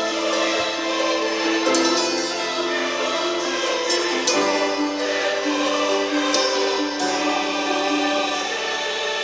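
A song played from a phone over Bluetooth through the built-in speaker of a G63 multifunction lamp, clock and wireless charger: music with sustained chords and a steady bass, with sharp percussion hits now and then.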